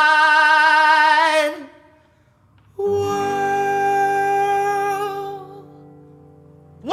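Background music: a long held sung note with vibrato that fades out about a second and a half in, a brief pause, then a steady held chord that slowly fades away.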